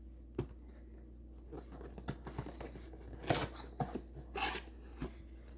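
Packaging being torn and opened by hand: short tearing and crinkling sounds with a few light knocks, the loudest about three and four and a half seconds in.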